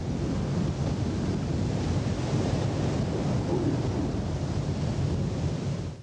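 Steady rushing wind noise buffeting the microphone. It cuts off sharply just before the end.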